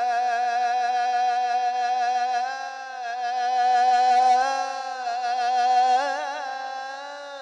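Solo male voice singing an Islamic ibtihal (devotional supplication), holding one long drawn-out note in melismatic Arabic style. The note steps slightly up midway and breaks into quick wavering turns about six seconds in.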